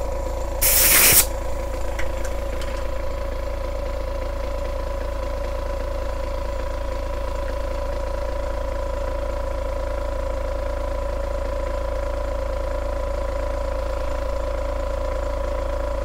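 A small motor running steadily: a constant hum with a faint hiss, cutting off abruptly at the end. A short, loud hiss comes about a second in.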